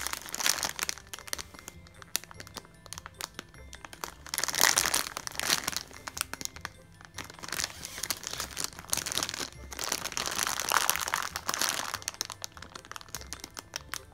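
Clear plastic packaging bag crinkling in bursts as a squishy toy is squeezed and handled inside it, loudest about four seconds in and again near ten seconds. Background music runs underneath.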